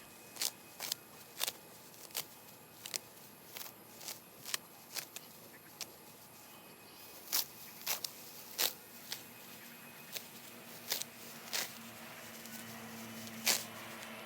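Grass and weeds being pulled up by hand: irregular crackly rustles and tearing snaps, a couple of times a second.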